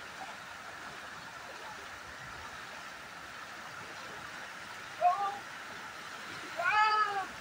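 A small river's water flowing steadily. About five seconds in comes a short pitched call, and near the end a louder one that rises and falls over about half a second.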